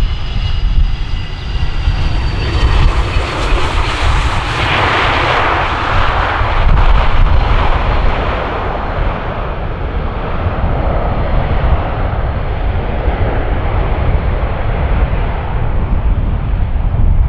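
McDonnell Douglas MD-87's rear-mounted Pratt & Whitney JT8D turbofans on landing rollout: a falling whine just after touchdown, then reverse thrust building into a loud roar about two seconds in, strongest around five seconds and easing off gradually as the jet slows.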